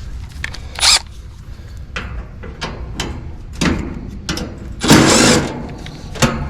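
Clicks, knocks and short scraping bursts of tools and sheet metal as the service panel of an Amana heat pump's outdoor unit is unscrewed and opened. The longest burst comes about five seconds in.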